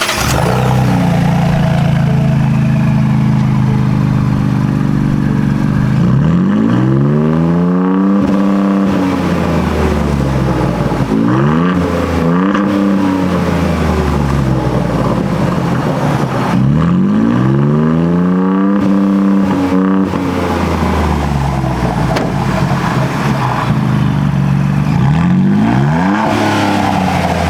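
Ford Bronco's 2.7-litre V6 through a Flowmaster Outlaw axle-back, muffler-delete exhaust: idling steadily for about six seconds, then revved again and again in short throttle blips that rise and fall, with a longer run of revs in the middle and a last one near the end.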